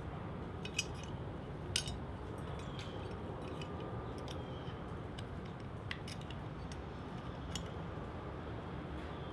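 Scattered light metallic clicks and clinks from small tools and parts being handled while an AR-15 trigger guard roll pin is worked out, about six over several seconds, over a steady low hum.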